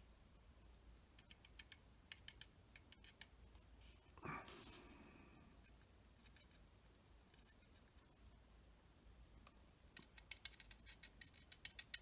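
Near silence with faint small clicks and ticks in quick clusters, and one light knock with a short ring about four seconds in.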